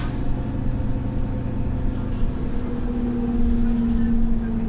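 Mercedes-Benz Citaro O530 bus's diesel engine running, heard on board, with a steady hum that grows louder and rises slightly in pitch about halfway through.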